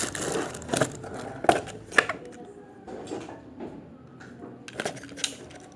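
Toy packaging being handled and opened: irregular sharp plastic clicks and crinkling, with the loudest clicks about one, one and a half and two seconds in, and again near the end.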